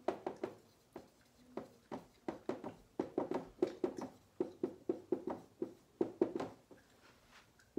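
Handwriting: an irregular run of short pen strokes and taps on a writing surface, several a second.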